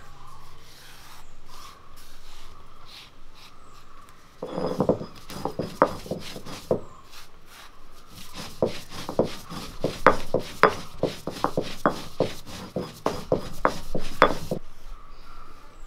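Peppercorns being crushed under a stone roller on a stone grinding slab: a few seconds of soft rubbing, then a quick irregular run of sharp cracking clicks as the seeds split under the stone, which stops suddenly near the end.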